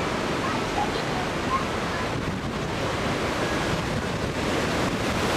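Strong hurricane wind rushing through trees and buffeting the microphone as a steady, loud noise.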